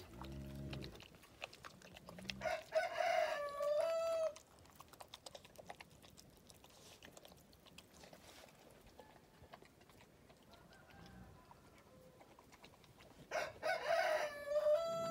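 A rooster crowing twice, once a few seconds in and again near the end, each crow a drawn-out call lasting a second or two.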